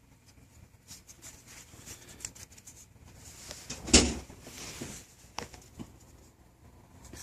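Folding multi-tool being handled, with light clicks and scrapes of its metal tools and one sharp snap about four seconds in, as a tool folds or locks.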